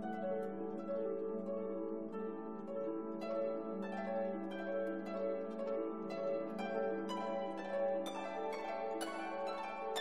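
Background music: plucked string notes in a flowing pattern over a sustained low note, the plucking growing busier toward the end.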